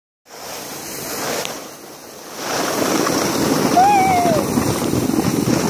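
A sled sliding over snow: a rough, steady rushing scrape with wind on the microphone, louder from about two and a half seconds in. About four seconds in there is a short cry that rises and falls.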